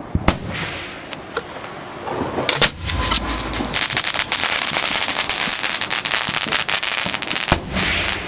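Fireworks going off close by: a few sharp bangs, then dense crackling from about three seconds in, closed by another sharp bang near the end.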